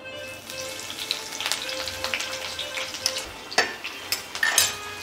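Sliced onions sizzling as they fry in hot oil in a wok, with a few sharp clatters of cookware, the loudest about three and a half seconds in and near the end.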